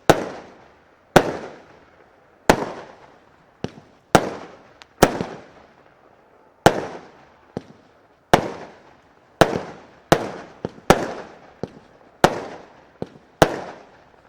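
Consumer fireworks battery firing shot after shot: a sharp bang about every second or so, each followed by a fading echo, with a few weaker pops in between.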